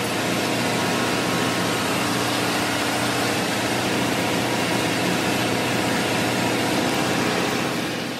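Steady machinery noise of a ship's engine room: a constant running hiss and hum with a few steady low tones.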